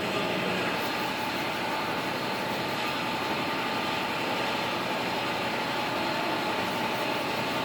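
A machine running steadily, a whirring hiss with a held whine in it.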